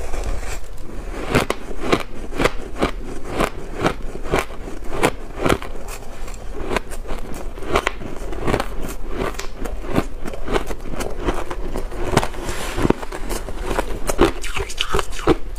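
Close-miked crunching of dry, crisp shaved blender ice as it is bitten and chewed: a fast, uneven run of sharp crunches, two or three a second.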